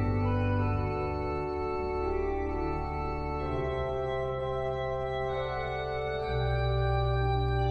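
Organ music: slow, sustained chords over a deep bass, the chords changing every second or two.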